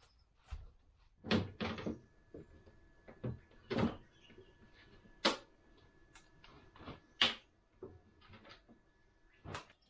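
Irregular knocks and clunks of objects being handled, about a dozen, the loudest around a second and a half, four, five and seven seconds in. A faint steady hum runs underneath from about two seconds in until near the end.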